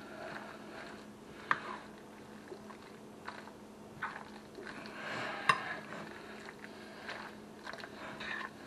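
Spoon stirring chicken salad and mayonnaise in a glass bowl: soft wet squishing with scattered light clinks of the spoon on the glass, the sharpest about five and a half seconds in.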